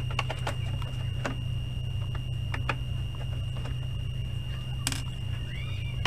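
Steady low hum with a faint high whine under it, and a few light clicks and taps of hands handling a CRT TV's plastic cabinet, the sharpest click about five seconds in.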